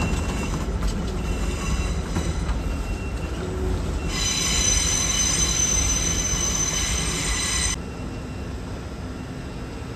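A train moving over the rails with a low rumble and a high-pitched squeal. The squeal swells about four seconds in and cuts off suddenly about eight seconds in, leaving a quieter, steady hum.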